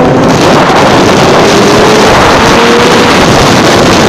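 Loud wind rush on the microphone as a heavy motorcycle rides at speed, with the engine note faint underneath and rising slightly partway through.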